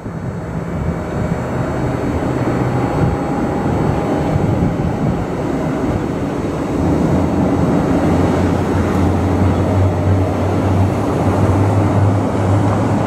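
Boeing 737 jet engines being started after pushback, a steady rumble with a low hum that grows louder about seven seconds in.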